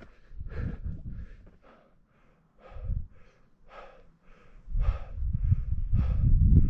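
A climber's heavy, quick breathing from exertion, short regular breaths about two to three a second. From about two-thirds of the way in, a louder low rumble buffets the microphone.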